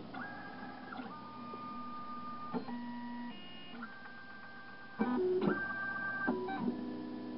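Darex XPS-16 CNC drill sharpener's motors whining at a series of steady pitches that jump to a new pitch every half second to a second, with clicks at the changes and louder from about five seconds in: the machine driving its mechanism to measure the .125 inch gauge pin during diameter calibration.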